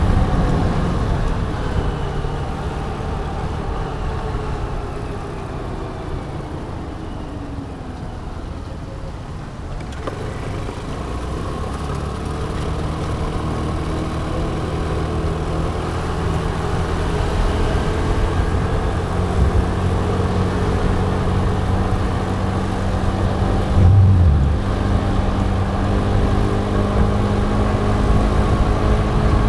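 Motor scooter riding in traffic: a steady engine hum under road and wind noise, easing off for a few seconds and then picking up again. A short louder low burst comes about three-quarters of the way through.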